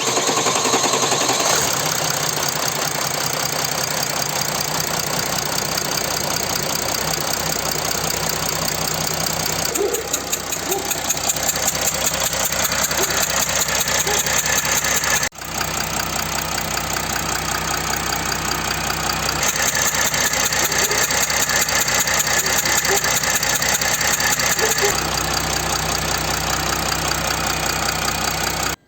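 Mercedes OM642 3.0-litre V6 turbodiesel idling with a steady, even diesel clatter. It cuts off briefly about halfway through.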